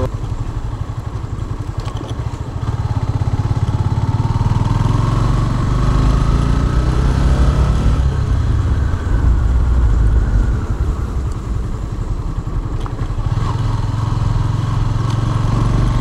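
Motorcycle engine running as the bike rides along. A whine rises in pitch a few seconds in, then fades out.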